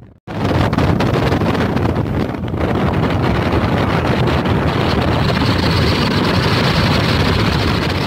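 Strong storm wind buffeting a phone's microphone: a loud, steady rumbling roar that drops out briefly right at the start.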